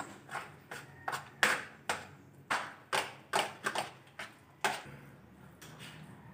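A series of sharp taps, a dozen or so at uneven intervals of roughly a third to half a second, each ringing briefly in a small tiled room. They grow fainter near the end.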